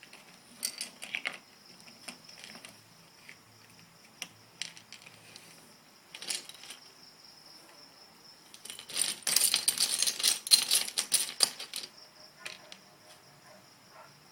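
Plastic Lego bricks clicking and clattering, scattered at first, then a dense run of rattling from about nine to twelve seconds in, as bricks are stirred through a pile.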